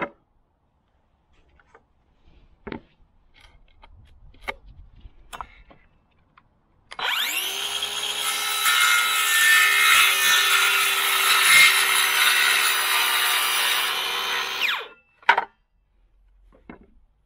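Stanley FatMax V20 18V cordless circular saw running up to speed and crosscutting a feather edge board for about eight seconds, a steady motor whine under the cut, then winding down. Light knocks from the board being handled come before the cut, and a sharp knock follows just after it.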